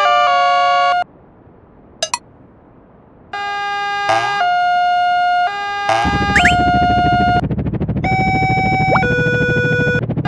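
Electronic level-crossing warning sounds from a cartoon: held synthetic tones stepping from pitch to pitch like a siren. They break off about a second in for two seconds, apart from one short blip, then resume, with a low rumbling noise added underneath from about six seconds.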